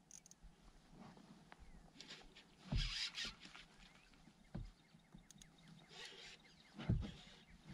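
A few sudden thumps and knocks on a plastic sit-on-top fishing kayak, with short bursts of splashy, rustling noise, while an angler stands and fights a hooked muskie on rod and reel. The loudest thump comes near the end.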